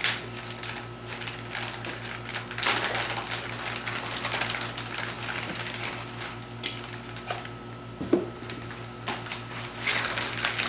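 Packing paper and foam rustling and crinkling as a motorcycle exhaust is unwrapped, with irregular light clicks and knocks of handling throughout.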